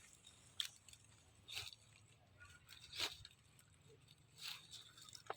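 Faint, sparse crunches and clicks, about four in five seconds, over a low steady hum.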